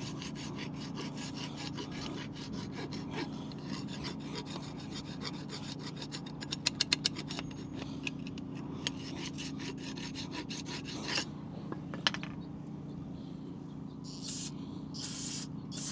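Hand file rasping in quick back-and-forth strokes on the pad slots of a rusty Land Rover LR4/LR3 front brake caliper bracket, scraping off rust and brake dust so the new pad clips sit flat. The filing stops about eleven seconds in, followed by a few clicks and two short spray hisses near the end.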